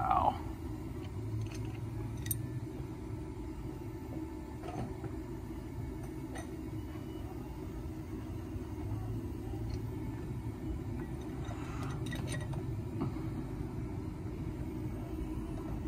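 A steady low background rumble with a few faint, short metallic clinks scattered through it.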